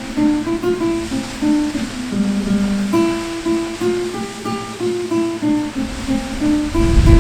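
Relaxation music: a slow melody of single plucked notes on an acoustic guitar, over a steady rush of falling water.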